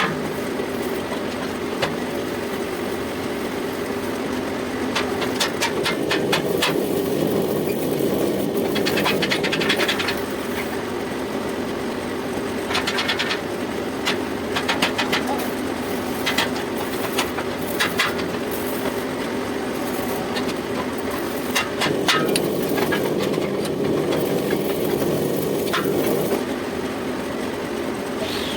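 Metal lathe running steadily with a constant motor hum, while the cutting tool works a steel pipe nipple, with scattered clicks and short scraping stretches.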